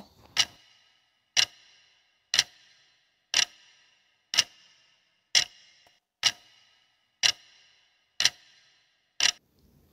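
Clock-tick sound effect marking a quiz countdown timer: ten sharp ticks, one a second, each leaving a brief ring.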